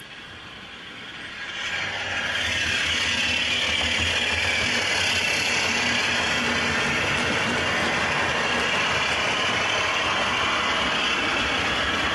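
OO gauge model train running past: a Bachmann Class 47 with a DCC sound decoder plays its diesel engine sound while the parcels vans' wheels rattle along the track. It grows louder about two seconds in, then holds steady.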